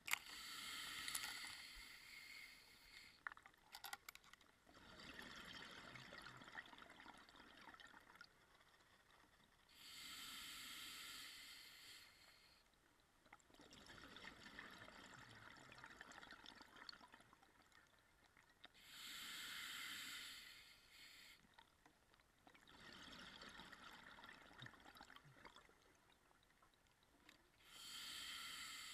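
Faint breathing of a scuba diver on a regulator underwater: a hiss with each inhalation, about every nine seconds, alternating with a lower rush of exhaled bubbles.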